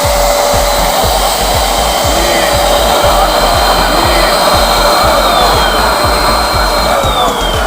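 Paint Zoom handheld electric paint sprayer's motor running, a loud steady rush of air with a whine; shortly before the end the whine drops in pitch.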